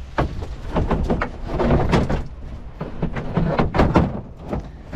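A run of knocks, thumps and clatter from a pickup truck's door and a warning sign being handled and flipped over.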